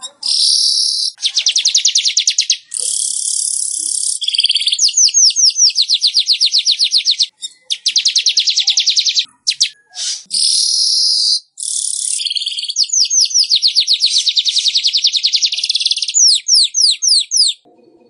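Weaver bird (manyar) singing: high-pitched, rapid buzzing chatter in runs of one to three seconds with short breaks, closing with a few slower downward-sweeping notes.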